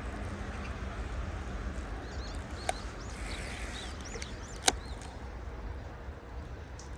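Small birds chirping in a quick series over a steady low rumble, with two sharp clicks about two seconds apart, the second the loudest.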